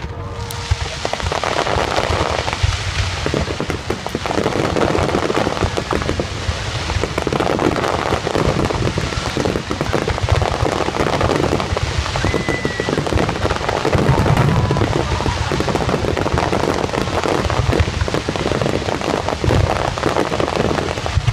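Dense fireworks barrage: many aerial shells bursting at once with repeated deep booms over a continuous rain-like crackle of glittering stars.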